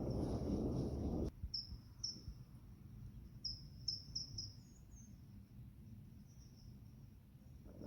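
A low rumble that cuts off suddenly about a second in. Then faint, short, high-pitched chirps repeat irregularly over a quiet background.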